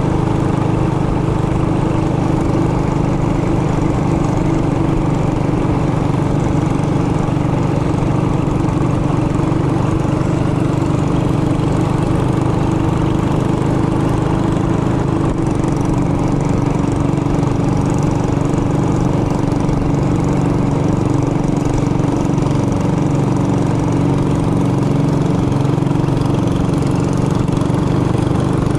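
Trailmaster Hurricane 200X mini bike's single-cylinder four-stroke engine running under way at a steady, even speed.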